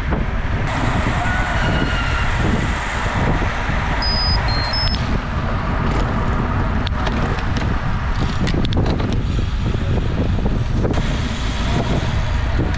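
Road bicycles rolling at speed in a group: steady wind noise on the microphone with tyre and road noise. A short run of three high electronic beeps comes about four seconds in.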